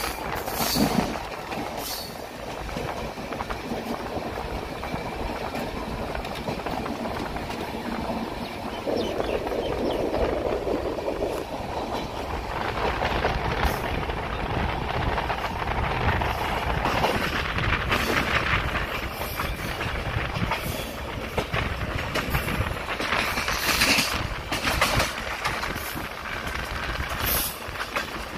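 Indian Railways express train running at speed, heard from aboard the moving coach: a steady rumble of steel wheels on rail with irregular sharp clanks and clatter.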